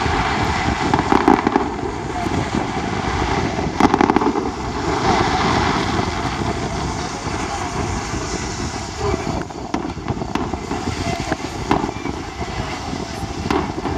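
Fireworks going off at a distance: scattered sharp bangs, the loudest cluster about four seconds in, over a steady rushing background noise.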